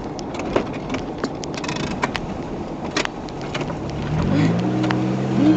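1994 Oldsmobile Cutlass driven over a rough, muddy forest trail, heard from inside the car: loose parts and contents rattle and clatter over the bumps, and about four seconds in the engine revs up and holds.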